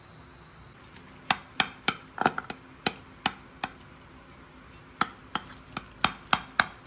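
Metal knife and fork clinking and tapping against a glass baking dish while cutting into baked pasta. The strikes are sharp and irregular, two or three a second, with a short pause about halfway.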